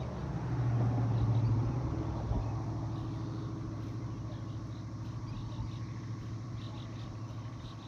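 Low motor hum and rumble that swells about a second in, then settles into a steady drone.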